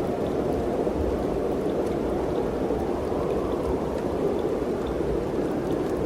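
Mountain wind blowing steadily: an even rushing noise with a low rumble underneath, unchanging throughout.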